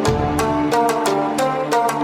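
Upbeat instrumental background music with a steady percussion beat over melodic notes.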